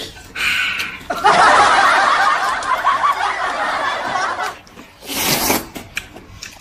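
A woman laughing hard for about three seconds. Near the end, a short slurp of noodles being sucked up.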